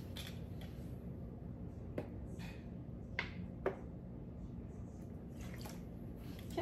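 Lemon juice squirted from a plastic squeeze bottle into a measuring spoon and dripped into a bowl of marinade: faint squirts and drips with a few light clicks.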